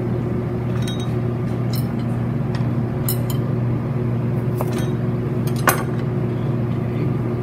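A scattering of sharp knife taps on a plastic cutting board as the ends are cut off a Japanese cucumber, with light clinks of steel and glass bowls being moved near the start. The strongest tap comes about a second before the end. Under it all runs a steady low machine hum.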